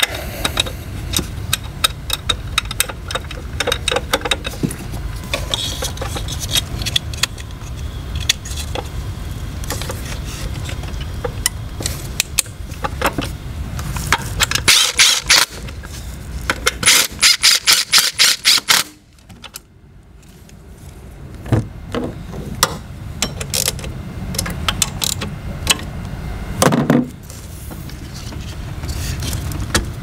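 Cordless power tool on the ignition coil pack's mounting bolts, running in a quick series of short bursts for a few seconds past the middle, then stopping suddenly. Around it come scattered clicks and knocks of hands and parts at the coil pack, with a low hum underneath in the first half.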